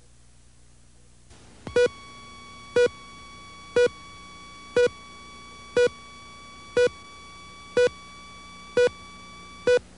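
Video countdown leader beeps: a short beep once a second, eight in all, over a fainter steady tone, as the slate's numbers count down.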